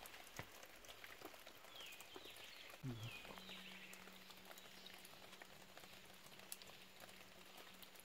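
Faint forest ambience: scattered soft ticks and crackles, with a few short falling chirps about two to three seconds in. A low thump comes about three seconds in, and after it a steady low hum runs on.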